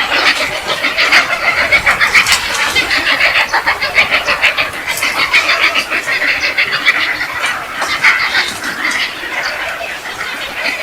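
Many birds calling and chattering at once, a dense, continuous din of short calls.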